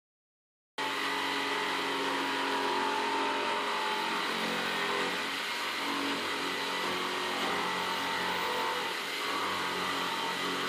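Power saw running steadily as it cuts through plywood for the boat's transom, starting abruptly about a second in.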